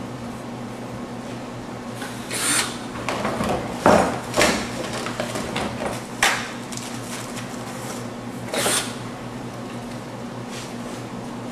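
Canvas being stretched over a wooden stretcher frame: a few sharp knocks and clacks, the loudest about four seconds in, with brief rustling between them, over a steady low hum.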